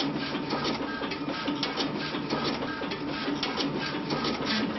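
Primera FX1200 digital label finisher running: the label web feeding through while its knife cutting heads move and cut, a steady mechanical whir with frequent irregular clicking.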